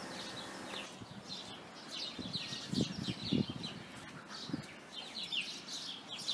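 A flock of sparrows chirping: many quick, high, falling chirps overlapping without pause. A few soft low thuds come about two to three and a half seconds in.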